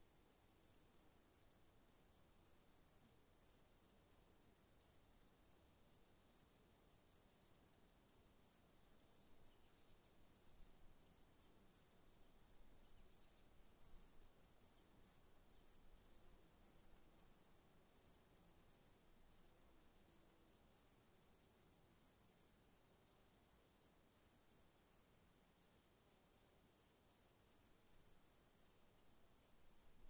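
Crickets chirping, faint: rapid, evenly repeating chirps over a continuous high-pitched trill.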